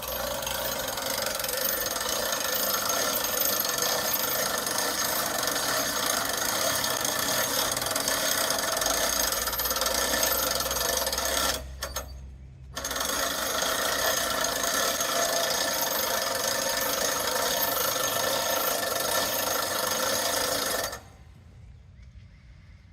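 Band sawmill running through a log, a loud, steady, high-pitched ringing whine. It drops out briefly about halfway through and cuts off suddenly near the end.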